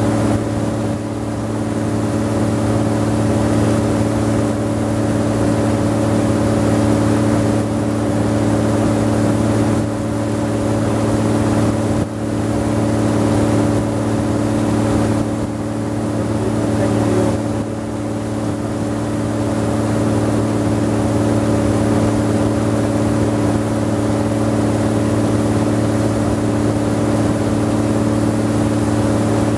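Motor river boat's engine running at a steady speed, a constant loud drone with a hiss above it.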